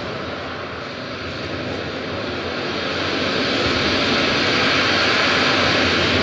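Recorded soundscape track of steady rushing, rumbling noise, engine-like, that swells louder through the second half.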